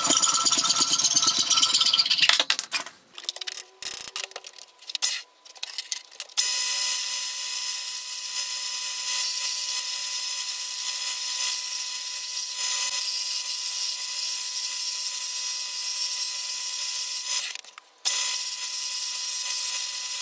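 A hacksaw cutting through a wooden dowel held in a bench vise, quick back-and-forth strokes for about the first two seconds, followed by a few scattered clicks and knocks. From about six seconds in, a geared-head metal lathe runs steadily with a constant hum while a handmade turning tool cuts a spinning wooden handle blank; the sound drops out briefly near the end.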